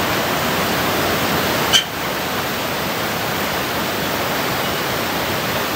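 Steady rush of a fast mountain river's white-water rapids tumbling over boulders, with a single brief knock a little under two seconds in.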